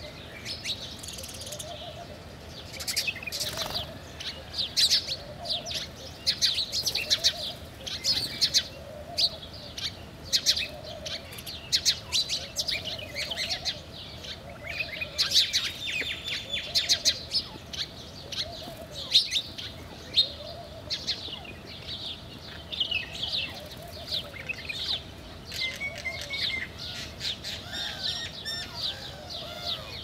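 A flock of house sparrows chirping busily, many short chirps overlapping. Under them, a dove coos a soft low note again and again, about every second and a half.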